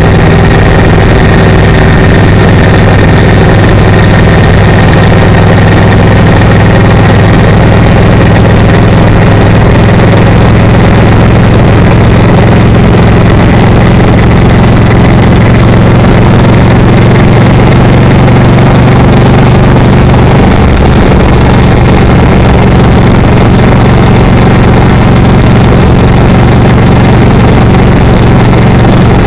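Car engine and road noise heard from inside the moving car, a loud steady drone with a slight change in pitch about two-thirds of the way through.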